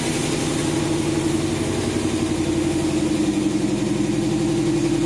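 Jeep HEMI V8 idling steadily on its first cold start after a year standing through a rebuild.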